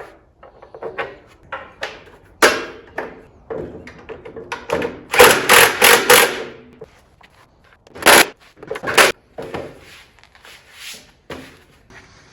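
Irregular knocks, clanks and clicks from parts and bolts being handled and fitted while the top goes onto a planer stand, with a loud burst of four quick strikes about halfway through and two more single knocks soon after.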